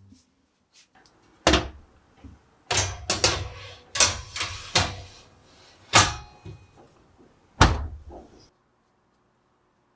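A run of about six sharp knocks and heavy thuds, some in quick pairs, like a door and hard objects being handled. The sound stops abruptly shortly before the end.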